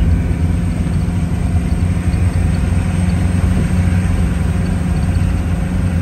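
A vehicle engine running steadily, a low even drone.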